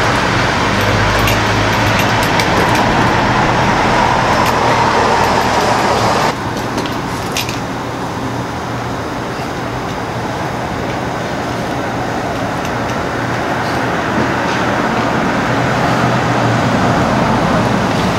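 Steady road traffic noise with a low engine hum. The noise drops suddenly about six seconds in, then slowly builds again.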